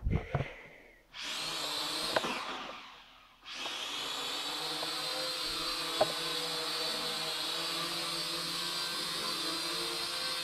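Small toy quadcopter's motors and propellers running with a high-pitched whine. They start briefly about a second in and die away, then start again a few seconds in and run steadily as it hovers, with one small tick about 6 seconds in.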